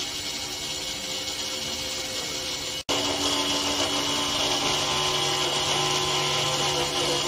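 Spindle motor of a desktop CNC router running steadily, its bit cutting into plywood. It breaks off for an instant about three seconds in, then carries on louder.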